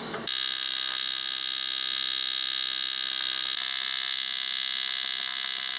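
AC TIG welding arc on 3 mm aluminium tread plate: a steady, high-pitched electric buzz that strikes up abruptly just after the start and holds evenly.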